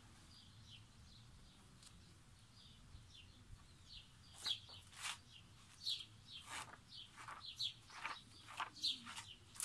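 Glossy magazine pages being leafed through by hand: short paper rustles and flips, about one to two a second from about four seconds in. Faint high chirping runs under them.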